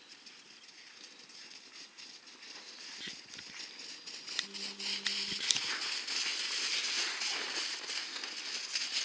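Crunching and rustling of steps in snow, with scattered crackles, growing louder from about three seconds in. A short steady low hum sounds briefly about four and a half seconds in.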